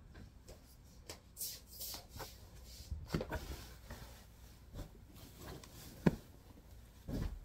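Bedding being handled: a sheet swishing and rustling as it is shaken out and spread, with a few thumps as pillows are put down on the bed, the loudest a sharp one about six seconds in.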